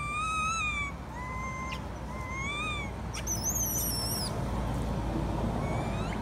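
A juvenile long-tailed macaque crying: about five clear, whistle-like whimpering calls, each arching up and down in pitch, with one much higher squeal in the middle. These are begging distress cries from a young monkey that wants its mother to nurse it.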